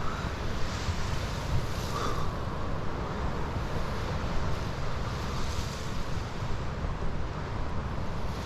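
Storm wind buffeting the microphone, with a steady low rumble, over Lake Michigan waves surging and breaking against the jetty.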